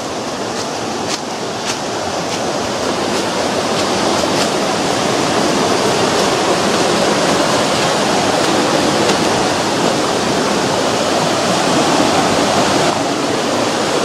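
Steady rushing of a river in the canyon below, slowly growing louder; light footsteps on leaf litter in the first few seconds.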